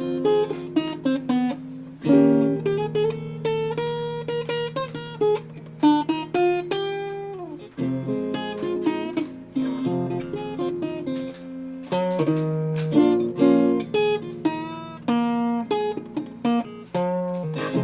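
Instrumental music led by an acoustic guitar, picked and strummed notes ringing over held lower notes.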